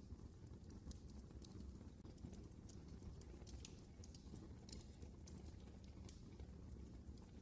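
Quiet wood fire in a fireplace crackling: irregular sharp pops and snaps, several a second, over a low steady rumble of the burning.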